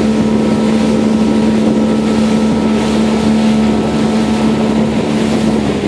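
A small motorboat's engine running steadily as the boat moves across open water, a constant hum, with wind buffeting the microphone.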